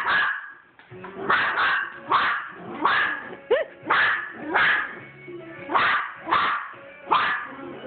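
Small white long-haired dog barking repeatedly in short, sharp, high yaps, about a dozen of them, roughly one every half second to second.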